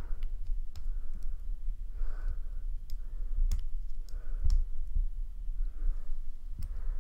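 Thin screwdriver tip clicking against the folded sheet-metal case of an Audio-Technica AT92E phono cartridge as its crimped locking tabs are pried and bent up: scattered small sharp clicks at irregular intervals.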